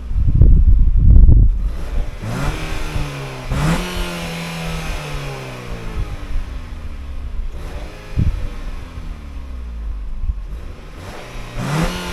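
Nissan Qashqai J10 2.0 engine heard at the exhaust, revved with the car standing still. The pitch rises about two seconds in, holds briefly, then slowly falls back toward idle. A short blip comes about eight seconds in and another rise near the end. A loud low rumble fills the first second and a half.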